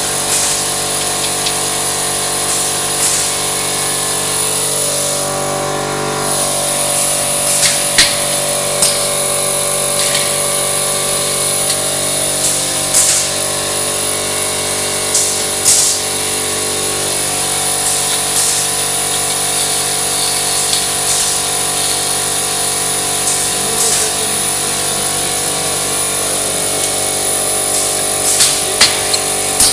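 Mobiprof GK roll-forming machine for drywall profiles running: a steady mechanical hum made of many pitches, with a high whine over it and sharp clacks now and then, several in a row about 8 to 16 seconds in and a cluster near the end.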